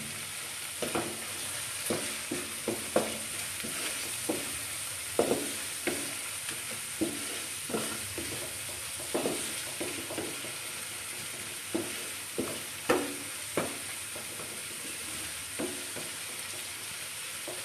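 Onion-tomato masala frying in oil in a frying pan with a steady sizzle. A wooden spatula stirs and scrapes it, knocking against the pan about once or twice a second.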